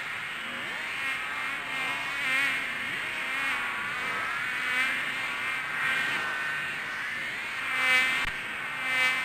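A flying insect buzzing in flight, its pitch wavering, growing louder and fading again several times as it passes close.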